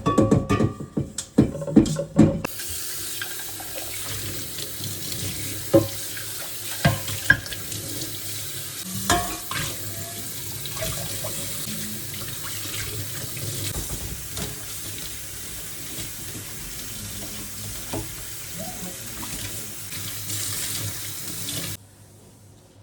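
Kitchen tap running into a sink in a steady stream, with a burst of knocks and clatter at the start and a few more knocks while the water runs; the tap is shut off suddenly near the end.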